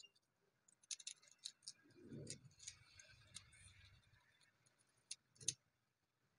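Faint, scattered light clicks and ticks of a small hand tool on a polished black stone tombstone plaque as the engraved gold lettering is worked over. A soft low thud comes about two seconds in and a sharper click about five and a half seconds in.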